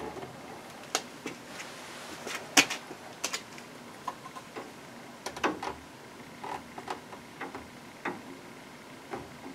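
Irregular small clicks and light knocks of tools and plastic parts being handled on a workbench, the loudest a sharp knock about two and a half seconds in.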